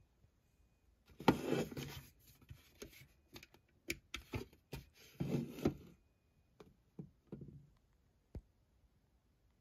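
Hollow plastic light-up pumpkin being handled: scraping and rubbing as it is lifted and turned over, a run of short clicks and knocks while its base is worked, and one sharp knock near the end.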